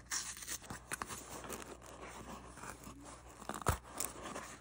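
Small cardboard box being handled and pried open by hand: irregular crackling and scraping of cardboard and paper, with one sharper knock about three and a half seconds in.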